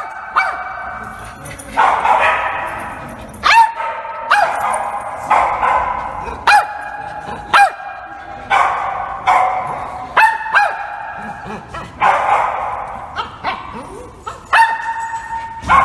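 Dog barking over and over: sharp, high-pitched barks about once a second.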